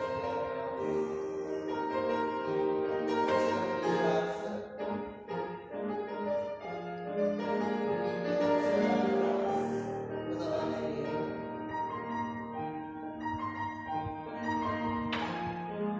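Classical music playing, with sustained melodic notes over a piano-like accompaniment.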